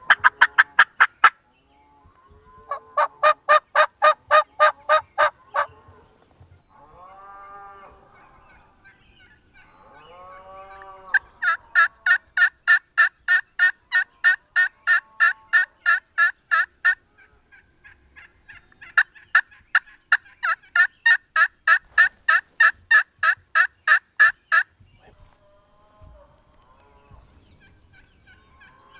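Turkey yelping: four loud runs of fast, evenly spaced notes, about four a second, each run lasting from one to six seconds, with a few softer yelps between the runs.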